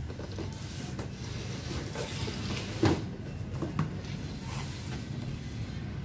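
Cardboard boxes being handled: sliding and rubbing against each other, with scattered light knocks, the loudest about three seconds in.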